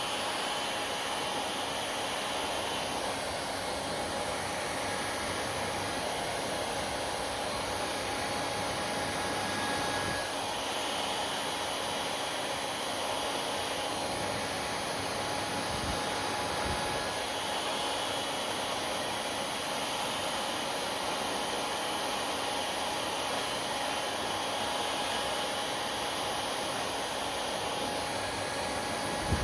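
Hair dryer running steadily: an even rush of blown air with a faint steady whine from the motor.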